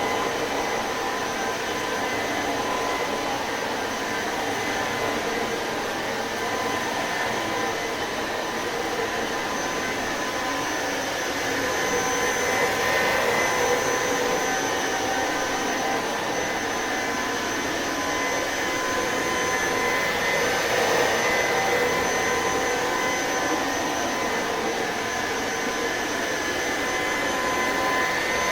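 Electrolux Pure F9 cordless stick vacuum running steadily while vacuuming a shag rug, a constant motor whine with a few steady high tones over the airflow noise, growing a little louder twice.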